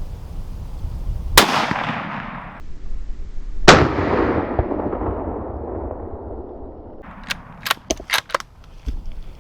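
Two deer-rifle shots about two and a half seconds apart, each with a long echo rolling away, the second the louder; this is the shot that drops a whitetail buck. A quick run of sharp clicks follows near the end.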